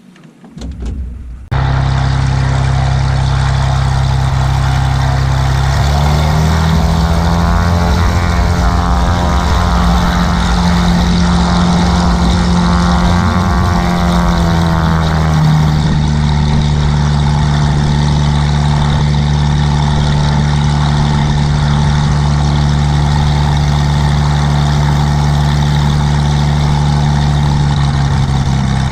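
Cessna light aircraft's piston engine cranked and catching about a second and a half in, then running loudly. Its pitch rises around six seconds in, holds, and drops back at about fifteen seconds to a steady lower run.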